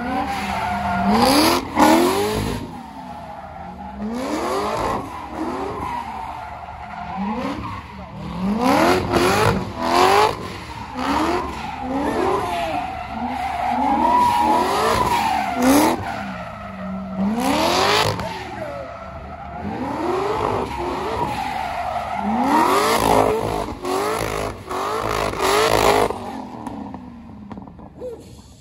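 Corvette V8 revving up over and over, its pitch climbing roughly every one to two seconds, as the car spins donuts with its rear tyres screeching and burning. A few sharp cracks stand out above it.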